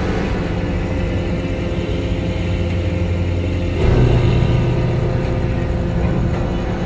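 Ship's engines running with a steady, deep drone, growing louder about four seconds in as the vessel gets under way.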